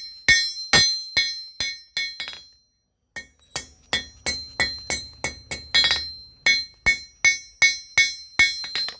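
Blacksmith's hand hammer striking a steel blade on an anvil, each blow ringing bright and metallic: the blade of a small mortar-applying tool being hammered flat and thin. A run of about two to three blows a second stops for a moment about two and a half seconds in, then a faster run of about four a second slows again toward the end.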